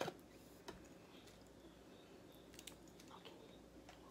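Near-silent room tone with a few faint clicks and soft squishes from a plastic ketchup squeeze bottle being squeezed over a plate.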